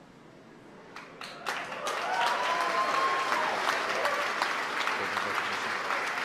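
A crowd breaking into applause and cheering: a few claps about a second in, swelling into full applause within another second, with a whoop near the middle.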